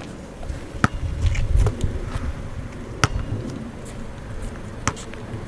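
A basketball bouncing on asphalt: three sharp, separate smacks about two seconds apart, with low wind rumble on the microphone.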